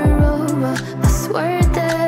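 Background music: a slow pop/R&B song with a held melody line over repeated deep bass drum hits that drop in pitch.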